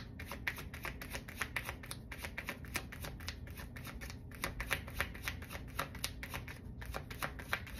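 Tarot cards being shuffled by hand: a continuous run of quick papery card flicks and taps, several a second.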